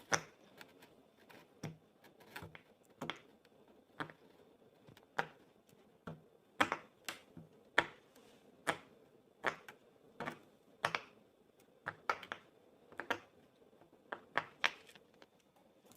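Silicone pop-it fidget bubbles being pressed: a series of short, sharp pops at irregular intervals, about one or two a second.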